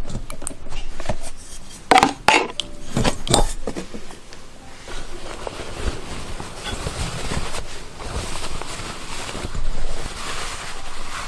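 Kitchenware being handled: a few sharp clinks of utensils against dishes about two to three and a half seconds in, then a longer stretch of softer scraping noise.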